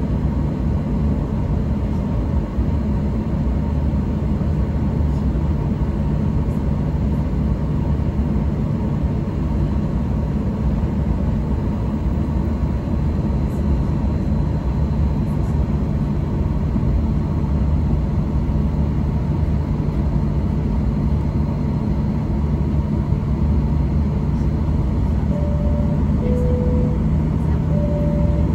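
Steady cabin noise inside a Boeing 737-800 on the ground, its engines and air conditioning humming. Near the end a two-tone high-low cabin chime sounds twice, ahead of the pre-takeoff announcement.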